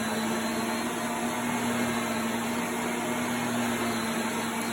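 Vacuum cleaner running steadily, a constant motor hum over an even rush of air.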